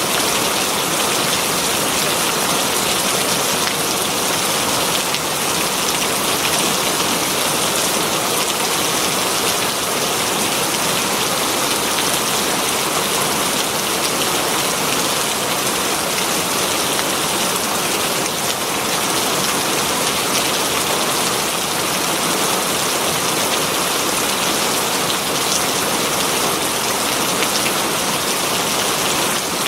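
Heavy rain falling steadily on leaves, a dense even hiss of drops.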